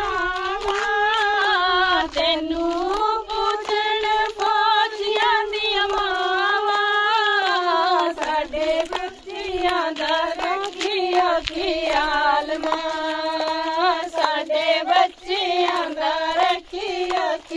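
A woman singing a slow melody in a high voice, holding long notes that waver in pitch, over a running pattern of sharp taps.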